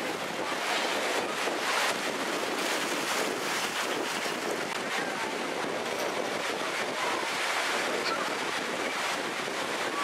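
Steady surf washing onto a beach, with wind buffeting the microphone.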